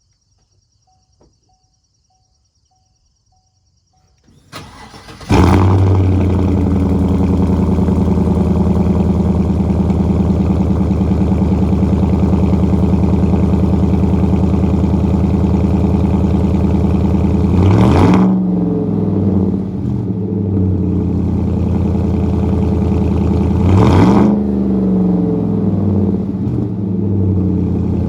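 Chevy Silverado 1500 pickup engine cranked over and catching after a faint repeating chime, then idling steadily, with two short revs about six seconds apart.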